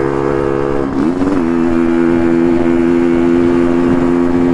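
Motorcycle engine running steadily while riding. About a second in, its note dips briefly, then settles at a slightly higher steady pitch.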